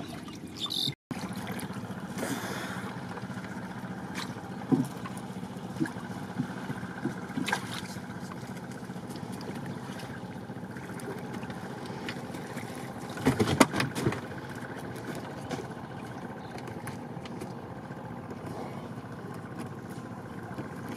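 A steady low motor-like drone with scattered knocks and splashes from a fish trap being handled on a wooden boat on the water. The knocks are loudest in a short cluster about two-thirds of the way through.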